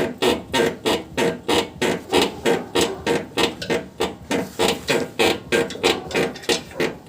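Isuzu D-Max front suspension squeaking in a steady rhythm, about three squeaks a second, as the truck is rocked up and down; the squeak is being traced on the right side to the suspension arm.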